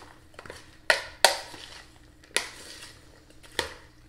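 A spoon stirring pasta salad in a mixing bowl: the pasta and vegetables rustle, with four sharp knocks of the spoon against the bowl.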